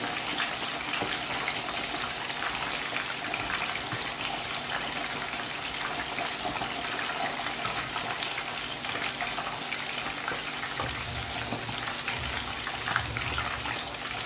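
A whole tilapia deep-frying in a pan of hot oil: the oil sizzles steadily with a dense crackle of small pops.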